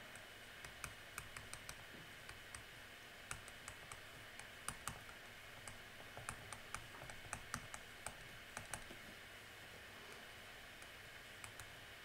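Faint, irregular clicks and taps of a stylus on a tablet screen as words are handwritten.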